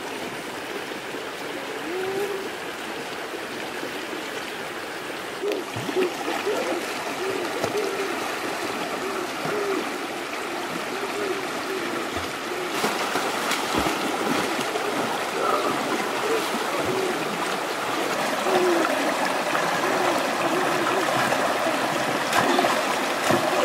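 Shallow rocky stream running over stones. In the second half, water splashes as people wade and splash about in it.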